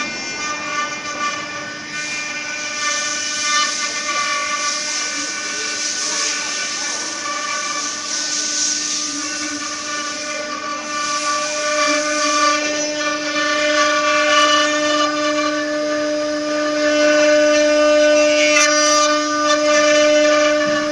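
Multi-head 4-axis CNC wood router, its spindles whining at speed as the bits carve the wooden legs. It is a steady high whine made of several even tones over the hiss of the cutting, and the lowest tone grows stronger about halfway through.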